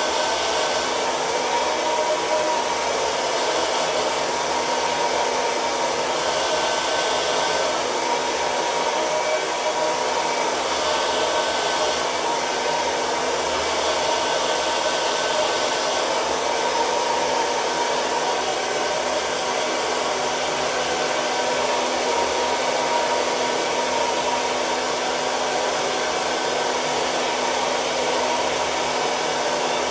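BaByliss hair dryer running on its highest airflow setting while drying hair: a steady rush of air with a faint constant whine.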